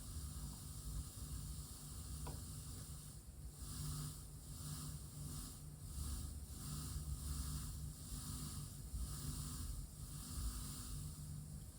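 Steady hiss and low hum from a studio monitor fed by a Tascam LM-8ST mixer, with a run of short hissy bursts about twice a second from about three seconds in until near the end.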